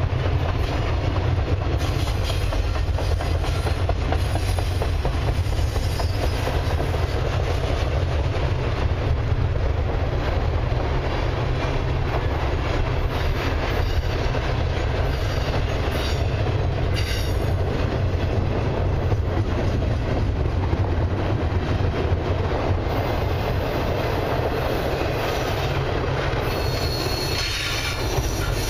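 Double-stack intermodal container well cars of a long freight train rolling past: a steady rumble of wheels on rail with occasional clicks, and a faint high wheel squeal near the end.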